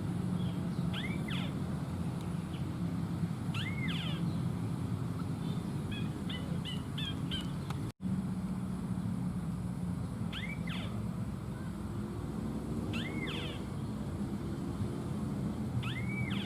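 A bird call, an arching whistled note with a sharp higher note beside it, repeated at a regular pace about every three seconds, with a short run of quick chirps midway. A steady low hum runs underneath, and the sound drops out briefly about eight seconds in.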